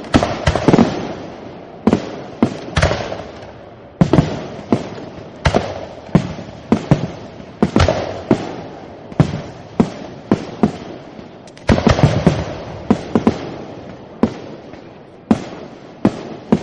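Fireworks going off in quick irregular succession, sharp bangs one to three a second, each followed by a rumbling echo over continuous crackle.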